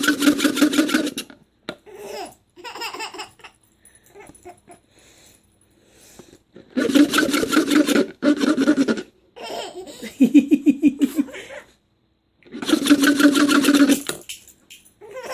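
A young child laughing hard at a weird noise, in several long fits of belly laughter with quieter gaps between them.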